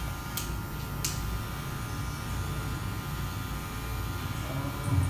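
Electric hair clipper running and cutting short hair at the side of the head with a steady hum, its blade lever set to the closest setting. Two sharp clicks within the first second.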